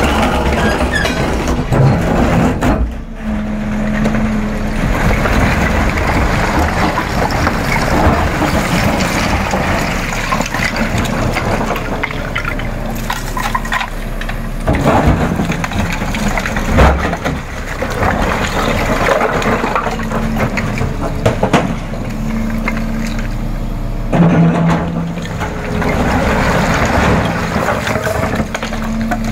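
Volvo EC380 excavator running steadily, its diesel engine and hydraulics working while the steel bucket scrapes and clatters through broken slate slabs, with sharp knocks of stone on steel now and then, the loudest a little past halfway.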